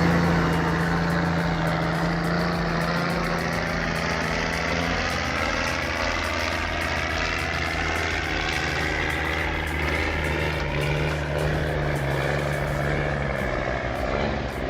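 Heavy diesel engine of a loaded logging vehicle running steadily under load, with a higher whine that slowly rises and falls in pitch.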